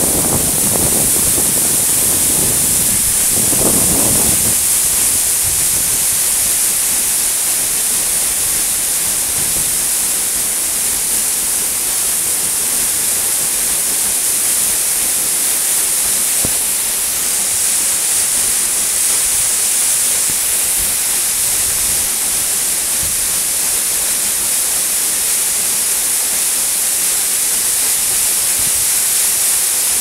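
A tall waterfall, about 100 feet, falling in spate after a day of rain, heard close to its foot: a loud, steady rush of water crashing into the pool below. There is an added low rumble in the first four seconds.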